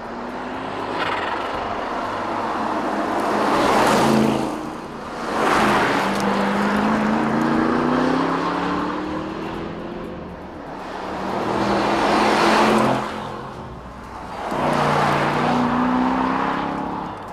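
Aston Martin DBX 707's twin-turbo V8 accelerating past on winding road bends, in four loud swells that rise and fade as the car comes and goes. One long pull rises steadily in pitch as the engine revs up.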